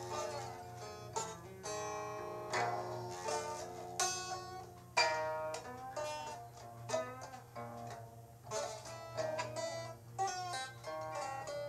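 Music on a plucked string instrument: a quick run of single plucked notes, each struck sharply and ringing away, over a steady low hum.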